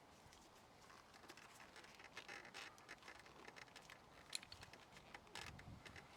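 Faint clicking and rustling of hands working plastic electrical connectors and fairing parts, with one sharper click about four seconds in and a soft low bump near the end.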